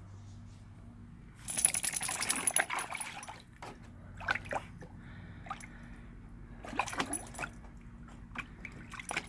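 Water splashing as a puppy paddles with its paws in a small, shallow pool: a burst of splashing about a second and a half in, then scattered smaller splashes and another short burst about seven seconds in.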